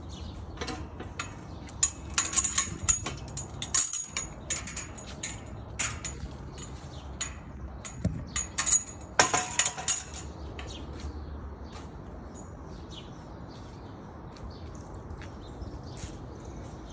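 Rustling and handling noise with a run of sharp clicks and clinks, from walking through a metal fence gate and brushing past leafy plants. The clicking fills the first ten seconds or so, then dies away to a quieter steady background.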